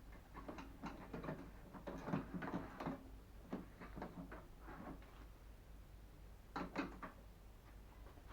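Irregular clicks, knocks and light scrapes of microwave oven parts and tools being handled during disassembly, with a sharp double click near the end, over a steady low hum.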